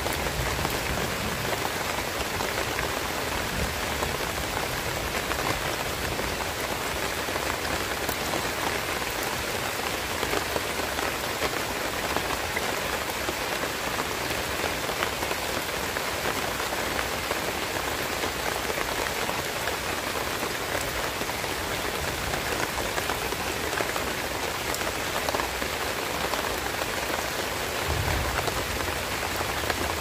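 Heavy rain falling steadily on a banana plant's leaves and fruit, an even hiss of drops with no let-up.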